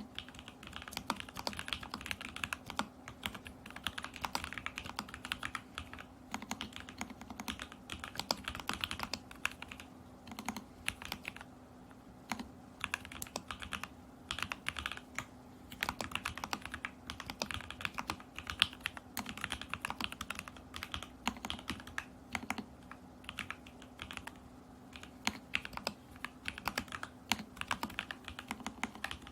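Continuous typing on a custom Alice-layout mechanical keyboard: lubed and filmed Lavender switches in a stacked acrylic case with a tape-modded Lumos PCB and Polycaps Whale keycaps. Rapid runs of key presses with a couple of brief pauses.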